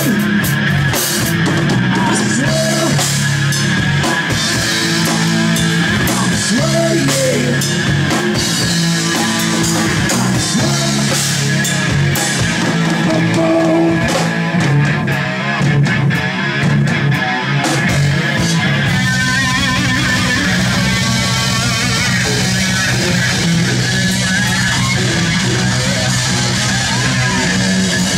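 Rock band playing live, with electric guitar and drum kit. About eighteen seconds in the drum hits thin out while the guitar carries on.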